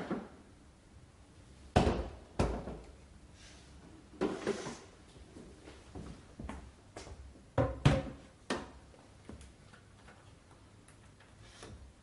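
Plastic clunks and knocks from a Kärcher SE 5.100 washing vacuum cleaner as its motor head is lifted off the tank and set down on a tiled floor. The knocks come one at a time, the sharpest about two seconds in and near eight seconds.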